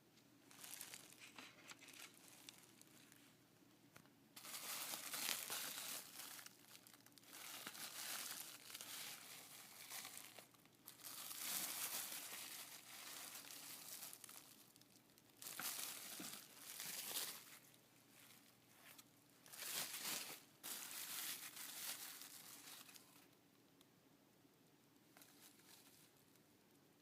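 Packaging being unwrapped and crinkled by hand in irregular bursts, which stop a few seconds before the end.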